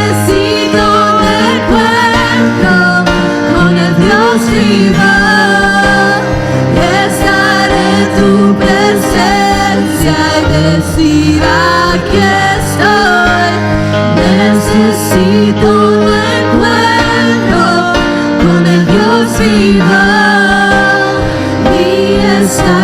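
Church worship music: a voice singing a wavering melody over long-held instrumental chords and bass notes.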